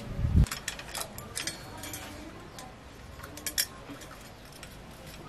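Bicycle chain clicking and clinking against metal as it is handled and fed onto the steel chainring, in irregular light clicks. A dull thump comes right at the start.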